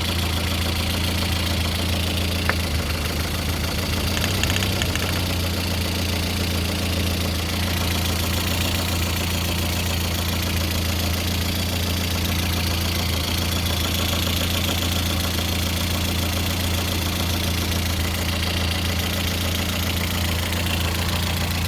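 Lada Kalina's 8-valve VAZ-11183 1.6-litre four-cylinder engine idling steadily with a knock in it whose cause the owner does not know.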